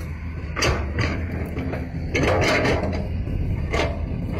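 Toy remote-control excavator's small electric motors and plastic gearing whirring in short bursts as the boom and bucket lift, the longest burst about two seconds in, over a steady low hum.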